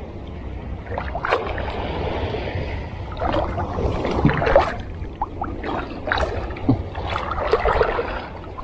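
Hooked eel-tailed catfish (sembilang) splashing and thrashing at the water's surface as it is reeled in, in irregular splashes.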